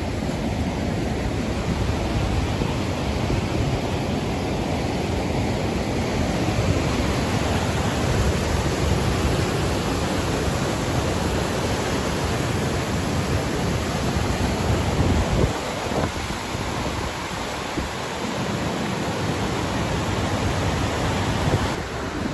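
Water rushing through an open river-dam floodgate: a steady, loud rush of falling white water with a deep rumble that eases somewhat about two-thirds of the way in.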